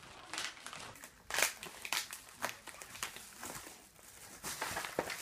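Yellow padded paper mailer crinkling and rustling as it is handled and opened, in a run of irregular crackles.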